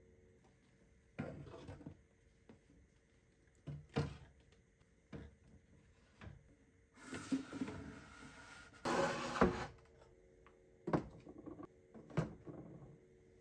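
Plastic bottles and containers being set down and moved about on pine wooden shelving: scattered knocks and clunks, with a longer sliding, rustling noise about seven to nine and a half seconds in.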